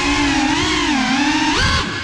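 FPV quadcopter's brushless motors whining, the pitch rising and falling smoothly with the throttle, with a sharp rise near the end before the sound briefly drops away.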